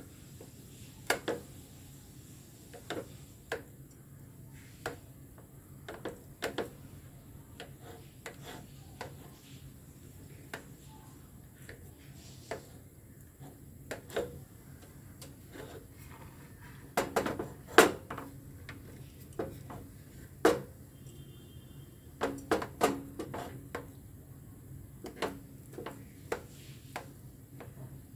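Knife blade cutting through a soft steamed lentil cake and knocking and scraping on the plate beneath: irregular clicks and taps, with the sharpest knocks bunched about two-thirds of the way through.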